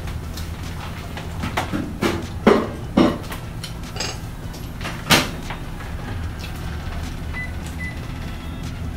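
A few sharp knocks and thuds, the loudest about two and a half, three and five seconds in, over a steady low hum.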